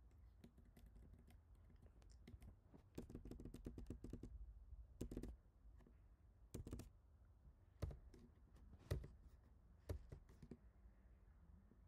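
Faint keystrokes on a computer keyboard: scattered single key presses with a quick run of presses about three seconds in, as lines are deleted in a text editor.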